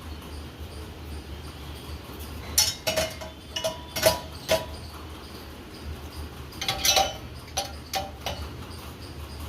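Two runs of light clattering knocks, several sharp hits a few tenths of a second apart with a brief ring after each, over a steady low hum.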